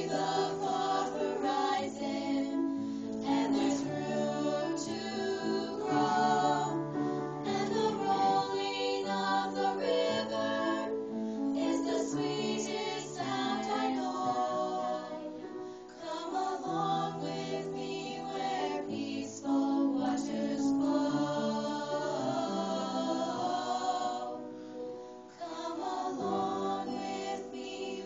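A small ensemble of young singers singing a slow song in harmony, with long held notes.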